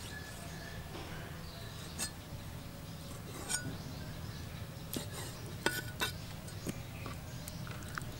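Cleaver cutting squid on a wooden chopping block: several sharp, irregular knocks and taps of the blade against the wood.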